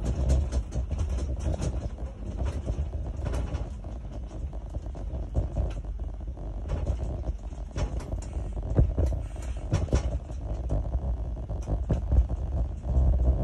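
Electric train heard from inside the driver's cab while running along the track: a steady low rumble with frequent sharp clicks and knocks as the wheels pass over the rails and pointwork.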